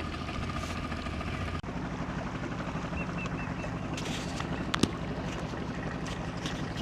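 Boat motor running steadily under way, with one sharp click a little before five seconds in.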